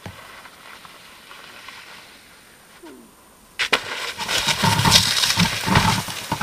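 A ski jumper landing hard and falling on the packed snow of the landing slope. A loud scraping, sliding rush of skis and body on snow with irregular low thumps starts suddenly about three and a half seconds in, after a faint hiss.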